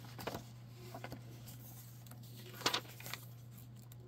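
Pages of a graphic novel being turned and handled: a few short paper rustles and light taps, the loudest about two and a half seconds in, over a steady low hum.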